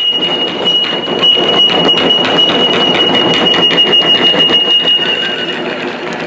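Rapid taiko drumming with a high steady tone held over it for nearly six seconds; the tone cuts off near the end.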